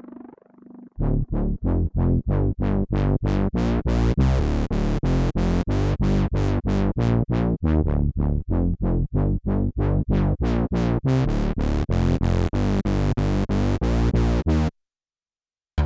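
Roland SH-201 synthesizer patch playing a fast, even run of short, bright staccato notes, about four a second, in a trance-style sequence. It cuts off suddenly near the end.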